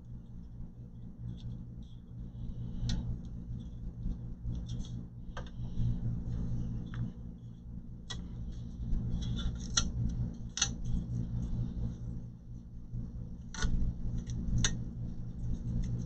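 Scattered small clicks and taps of hands handling computer parts and tools, several a few seconds apart, with a cluster near the end, over a steady low hum.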